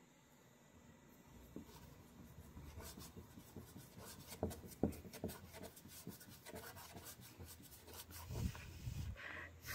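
Faint rubbing and a scatter of light clicks and taps, like hands handling something at close range, busiest in the middle and later part.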